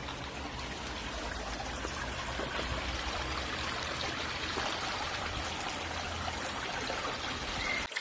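River water flowing, a steady, even rush that cuts off abruptly just before the end.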